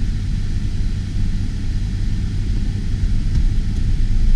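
Steady low rumble inside a slowly moving car: engine and road noise heard from the cabin.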